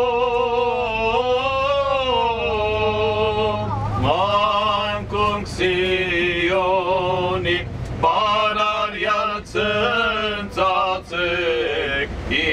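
A man singing a slow, chant-like hymn alone, holding long notes that glide and waver, with short breaks between phrases. A steady low hum runs beneath the voice.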